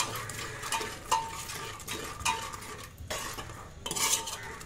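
Steel ladle scraping and clinking against the inside of an aluminium pressure cooker while a masala with freshly added yogurt is stirred continuously, so the yogurt doesn't split. A few sharp clinks, several with a brief metallic ring.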